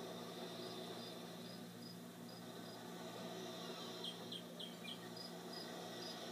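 Faint cricket chirping, about two and a half chirps a second, played as a nature-sounds track through a Zen bassinet's built-in speaker. A quick run of four bird chirps comes about four seconds in.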